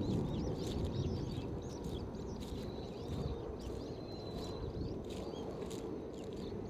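Small birds chirping and twittering in many quick, short calls, with a thin high whistled note held briefly about four seconds in. Underneath is a steady low rumble and the steps of someone walking.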